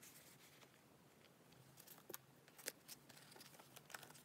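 Faint handling of a signature-canvas pencil case: a few light clicks and taps, twice in quick succession about two seconds in and again near the end, as the metal zipper pull and case are moved.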